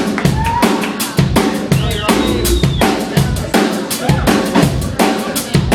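Live band playing an instrumental passage: a drum kit keeping a busy, steady beat of kick, snare and rimshot over bass, with a few sliding pitched tones on top.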